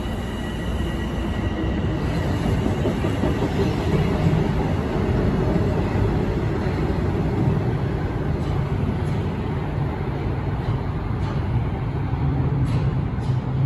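Toronto Rocket subway train running on the track: a continuous rumble of the car and wheels on the rails. A high steady whine fades out over the first couple of seconds, and a few sharp clicks come near the end.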